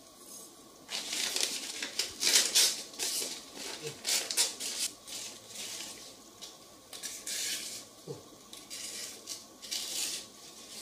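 Paper wrapping rustling and crinkling in a run of short, irregular bursts as a steel wood-carving chisel is unwrapped by hand.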